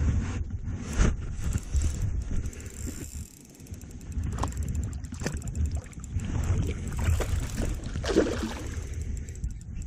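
Wind buffeting the microphone, with a few short clicks and, about eight seconds in, a splash at the water's surface close to the rod tip.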